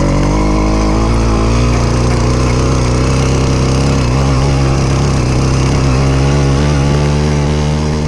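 Small single-cylinder engine of a motorized bicycle running steadily under way, its pitch rising a little in the first second and then holding.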